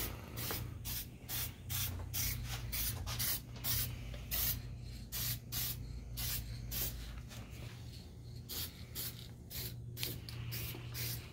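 Aerosol spray-paint can hissing in many short bursts, about two or three a second, as a light tack coat of white paint goes on. A low steady hum runs underneath.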